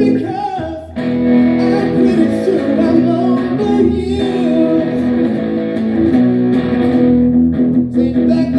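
Amplified hollow-body electric guitar played solo in an instrumental passage of a live song. A held chord dies away about half a second in, and the playing starts again about a second in, with shifting notes.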